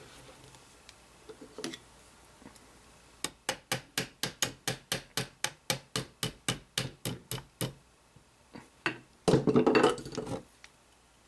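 Ball-peen hammer lightly tapping a KNS non-rotating pin into an AR-15 lower receiver: about twenty quick, sharp metallic taps at four to five a second. Near the end comes a louder clatter lasting about a second.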